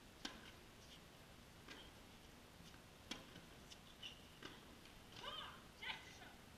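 Faint tennis rally on an indoor hard court: sharp clicks of racket strikes and ball bounces about a second and a half apart, the clearest near the start and about three seconds in. Near the end come a couple of brief high-pitched squeals.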